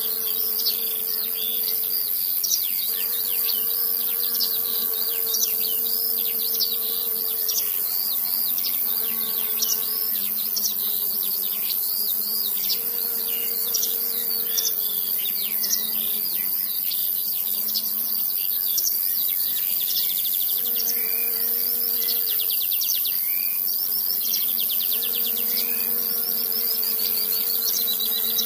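Small multirotor camera drone's propellers buzzing at a steady pitch that steps up or down every few seconds, with short high chirps over it.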